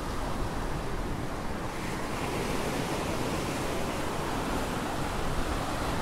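Ocean surf breaking and washing up a sandy beach, a steady hiss of waves that swells a little about two seconds in. Wind buffets the microphone with a low rumble.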